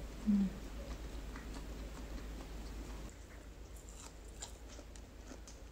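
A person chewing roast turkey meat close to the microphone, with faint moist mouth clicks that grow more frequent in the second half as she takes another bite. A short low hum comes just after the start.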